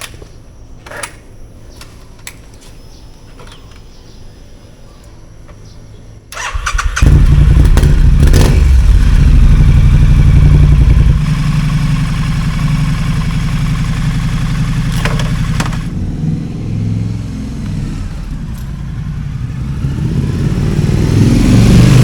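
Triumph Scrambler 900's parallel-twin engine starting about six seconds in, then running loudly at idle, its note rising again near the end.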